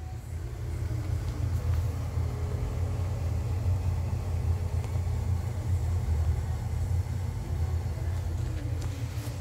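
A steady low rumble, with a faint hum above it.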